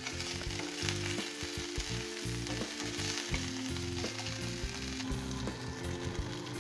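Ginger paste and whole spices sizzling in hot oil in a nonstick frying pan, stirred with a spatula that scrapes and taps the pan now and then.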